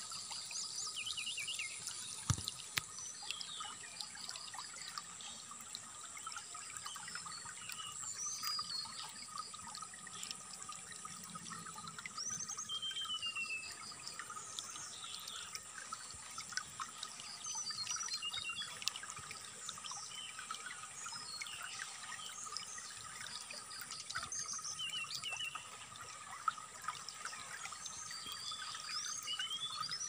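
Trickling, flowing water with songbird chirps and short whistled phrases scattered throughout, some notes quickly falling and some rising, over a steady high-pitched drone. The birdsong is brown-chested jungle flycatcher (sikatan rimba dada coklat) training song.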